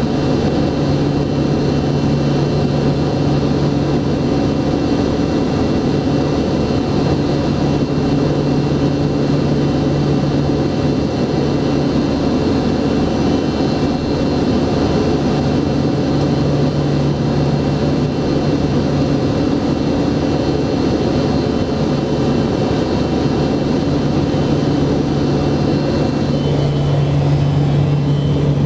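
Steady engine and propeller drone of a Royal Duke aircraft heard from inside the cockpit, with a low hum that swells and fades every few seconds.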